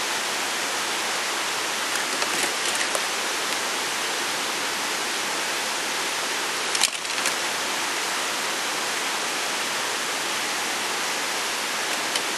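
A steady, even hiss with little low end, with a few faint clicks about two seconds in and one sharp knock about seven seconds in.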